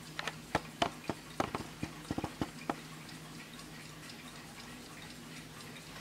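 A run of irregular light clicks and taps, some with a brief metallic ring, for about the first three seconds, then only a faint steady hum.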